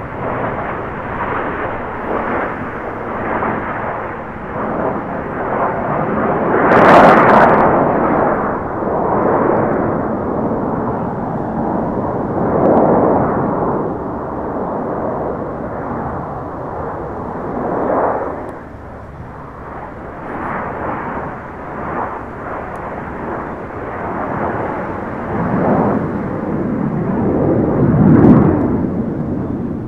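Canadian Snowbirds' CT-114 Tutor jets flying over in a nine-plane formation, their jet engine noise a continuous rumbling rush that swells and fades. It is loudest about seven seconds in and again near the end.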